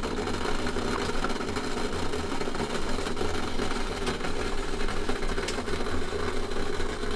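Stainless steel kettle on a wood stove coming to the boil: a steady rumble of heating water, with a couple of faint clicks about four and five and a half seconds in.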